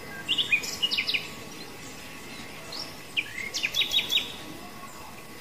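Small bird chirping in two short runs of quick, high chirps, the first just after the start and the second about three seconds in, over a faint steady outdoor hiss.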